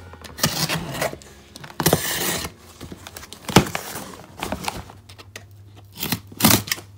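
Cardboard shipping box being cut and torn open: packing tape and cardboard tearing and scraping in rough bursts, with a sharp knock about halfway through and a few more near the end.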